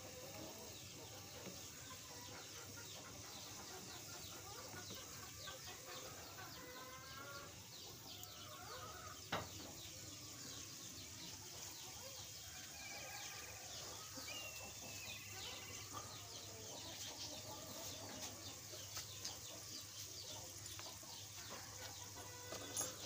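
Potato chips frying in hot oil in a small steel bowl, a faint steady crackling sizzle. A few short animal calls sound over it, with a sharp click about nine seconds in and another near the end.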